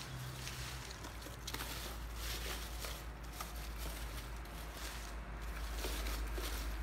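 Dry leaves rustling and crackling irregularly as hands rummage and rearrange them in a cardboard box, over a low steady rumble.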